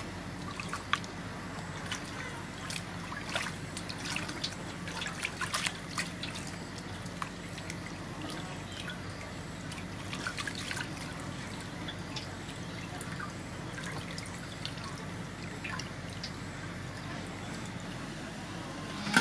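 Hands washing a slab of raw pork in a metal basin of water: small splashes, trickles and drips, busiest in the first half. A single sharp knock at the very end.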